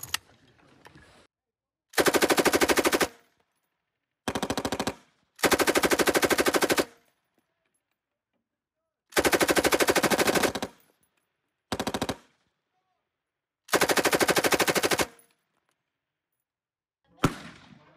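M249 light machine gun firing belt-fed 5.56 mm rounds in six short bursts of automatic fire, each between about half a second and a second and a half long, with a single sharp report near the end.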